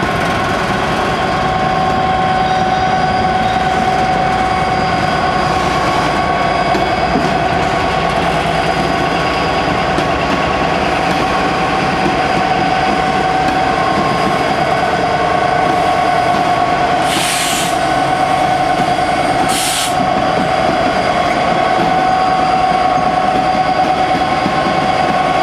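Class 66 diesel locomotive 66207 with its two-stroke EMD V12 engine running as it moves slowly past, a steady high whine over a continuous rumble. Near the end come two short hisses about two seconds apart.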